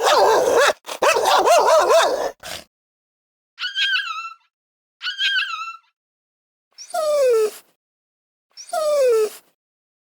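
A dog barking in a rough burst, then giving two short high whimpers and two whines that fall in pitch.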